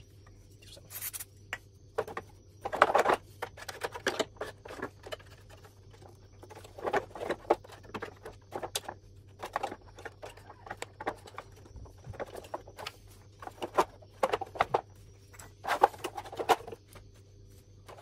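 Irregular clicks, knocks and scrapes of plastic parts being handled as the cross-flow blower wheel is fitted back into a split air-conditioner's indoor unit. A faint steady low hum runs underneath.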